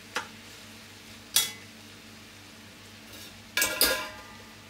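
A stirring utensil knocking against a cast-iron pot of vegetables: a sharp knock just after the start, another about a second and a half in, and a louder ringing clatter near the end as the utensil is set down in the pot. A steady low hum runs underneath.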